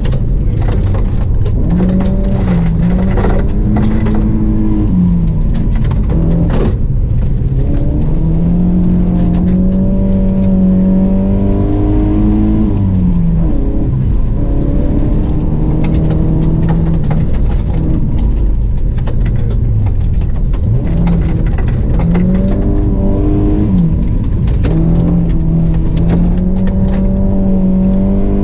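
Rally car engine heard from inside the cabin, driven hard on a gravel stage: the pitch climbs and drops again and again as it accelerates and shifts gear. A few sharp clatters come in the first several seconds.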